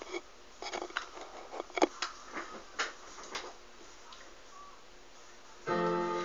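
Handling noise at the webcam: a scatter of small clicks and knocks as it is touched and set in place, then a quiet stretch. Shortly before the end an instrumental backing track starts.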